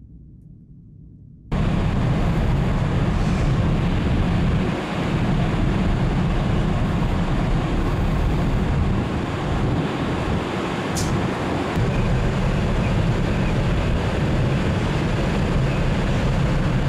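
Wind noise on the microphone over a steady low rumble on the open deck of a moored car ferry. It starts abruptly about a second and a half in, after a faint low hum. There is one brief click near the middle.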